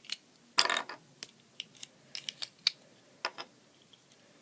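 Plastic Rubik's Cube pieces clicking and clacking as the last edge pieces are twisted off the core and pulled out by hand. The sound is a dozen or so irregular sharp clicks, the loudest about half a second in.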